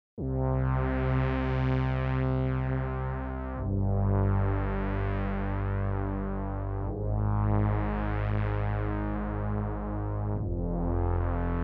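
An MFB synthesizer playing long, held chords: four chords, each lasting about three and a half seconds, starting abruptly after a brief silence. Each chord swells brighter and then dulls again, like a filter opening and closing.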